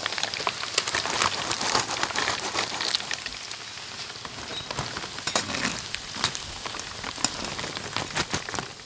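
Chicken pieces deep-frying in hot oil in a wok, a dense crackle and sizzle. It eases a little after about three seconds as the pieces are lifted out with a wire strainer.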